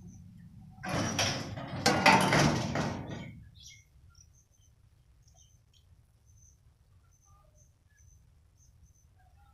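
Electrically operated railway level-crossing boom barrier swinging down, with a loud mechanical rattle and scrape in two bursts, the louder starting about two seconds in, which stops as the boom comes to rest. Faint bird chirps follow.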